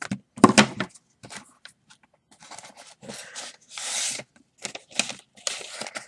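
Small paper envelope being opened by hand: paper rustling and ripping in short, irregular bursts, the loudest about half a second in and a longer one near four seconds.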